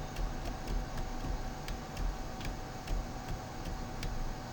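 Light clicks every few tenths of a second, unevenly spaced, over a steady low hum and a thin steady tone.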